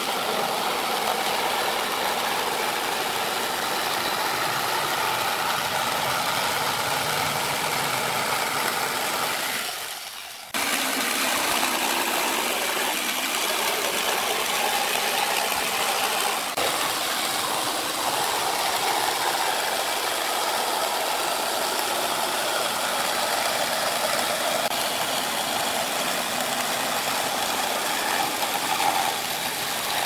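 Dong Cheng DMQ65 corded jigsaw running steadily as it cuts through a wooden board. About a third of the way in, the saw winds down and stops for a moment, then starts again at full speed.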